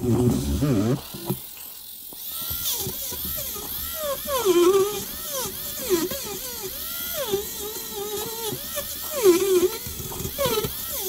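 Handheld rotary tool drilling out the rivet of a die-cast toy's base, its high whine dipping in pitch and recovering again and again as the bit bites into the metal. A brief lull about two seconds in.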